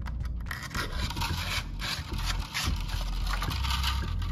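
Polycarbonate filament rods rubbing and scraping against a 3D-printed plastic fuselage section as they are threaded through it, in irregular strokes.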